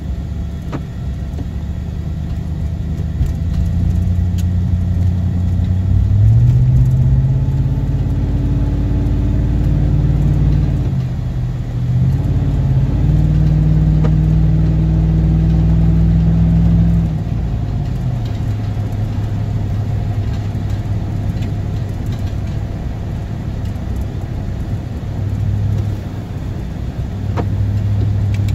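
A road vehicle's engine and tyres on a wet road, heard from inside the cabin. The engine pitch climbs as it accelerates out of a curve and breaks off briefly about eleven seconds in, as at a gear change. It climbs again, then drops about seventeen seconds in and settles to a steady cruise.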